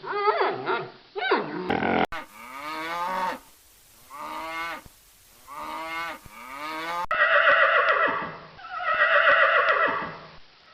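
Farm animal calls from several clips spliced together: three drawn-out calls, then two louder calls after a cut.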